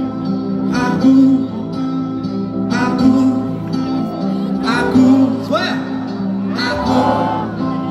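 Live band playing a slow song, heard from the audience: sustained chords over a slow beat with a hit about every two seconds, and a voice singing.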